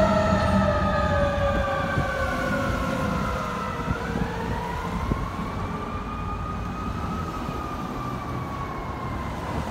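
Fire truck siren wailing as the ladder truck drives away, its pitch sliding slowly down. About four seconds in, a second wail rises and then slowly falls again, over the low rumble of the truck's engine, growing fainter as it moves off.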